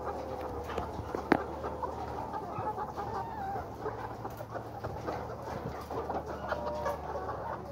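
A caged flock of white layer pullets clucking and calling, with many overlapping short calls. A sharp click comes about a second in, and a steady low hum runs underneath.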